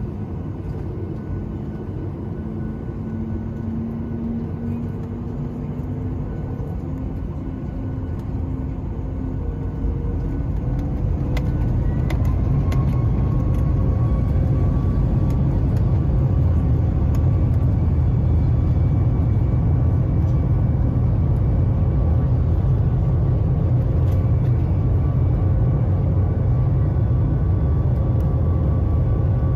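CFM LEAP-1B turbofan engines of a Boeing 737 MAX 8, heard inside the cabin over the wing. A low engine hum carries a slowly rising whine. About ten to twelve seconds in, the engines spool up to takeoff thrust and then run loud and steady, with a higher whine over a deep rumble.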